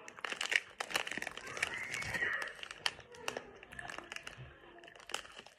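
Plastic snack wrapper crinkling in the hands as a packet of mini chocolate chip cookies is turned and handled: a run of small crackles all the way through.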